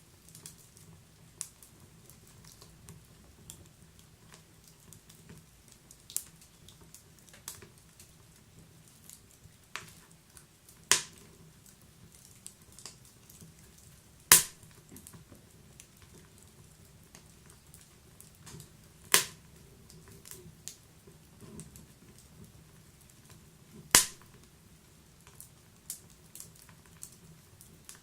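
Wood fire burning in a wood stove: a faint steady hiss with irregular sharp crackles and a few loud single pops from the burning logs, the loudest about halfway through.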